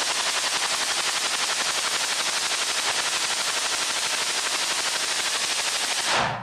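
Belt-fed machine gun firing one long continuous burst of fully automatic fire, about ten shots a second, echoing in a small brick-walled firing room. The burst stops abruptly near the end.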